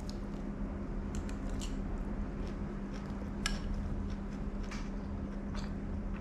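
Food-stall background: a steady low hum under scattered light clicks and clinks of utensils and dishes.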